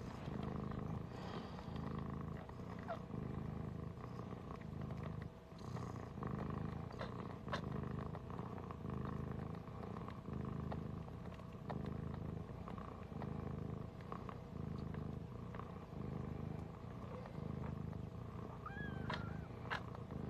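A Siberian mother cat purring close up while her newborn kittens nurse at her belly, a low steady purr that swells and eases in even cycles about every second and a half.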